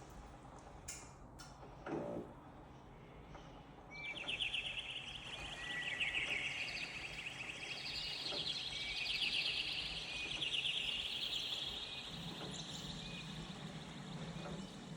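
Birdsong sound effect from a mirror-ball toy's built-in sound bank: rapid, overlapping chirping trills that start about four seconds in. Before them come a couple of sharp clicks and a short thump.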